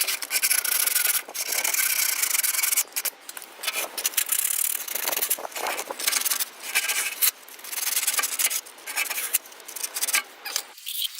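Hand rubbing strokes of sandpaper or a scraper on the metal of the exhaust pipe ends, cleaning up the faces of a leaking catalytic converter joint before a new gasket goes on. The strokes go back and forth, unevenly, about one a second.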